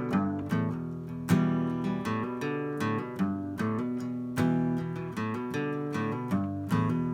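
Acoustic guitar playing the intro of a blues song, chords and picked notes struck in a steady rhythm.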